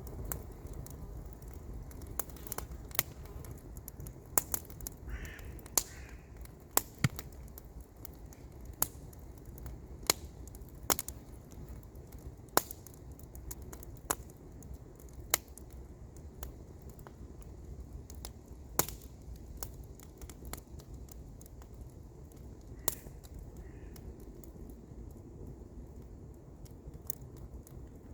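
Wood campfire crackling, with sharp, irregular pops over a low steady rumble. A bird calls briefly twice, a few seconds in and again near the end.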